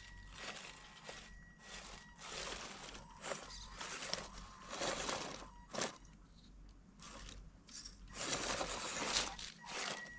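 WPL B36 6x6 RC truck climbing over stones and dry leaves: tyres crunching and scraping in irregular bursts, with the faint steady whine of its small electric motor and single-speed gearbox at the start and again near the end.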